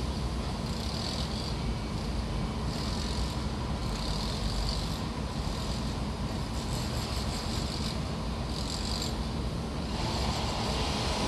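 Construction site ambience: a steady low engine rumble of machinery, with short high-pitched hissing patches coming and going every second or two. It grows a little louder near the end.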